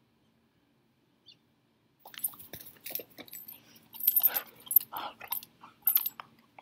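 Belgian Malinois chomping on her blue ball: irregular crunching and clicking chews, starting about two seconds in after a silent start.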